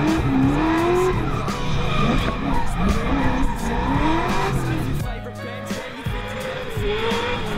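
Drift car engine revving up and down again and again, with tyres squealing as it slides. About five seconds in, the engine and tyre noise drops away and the sound becomes quieter and steadier.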